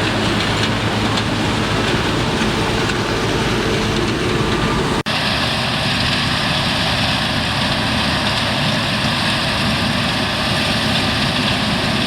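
Heavy diesel farm machinery running steadily. About five seconds in, the sound cuts out for an instant and comes back with a different, broader running noise with less low rumble.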